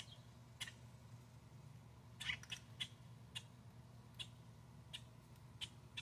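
Grackles giving short, quacking chuck calls, one every half second or so, with a louder run of calls a little past two seconds in.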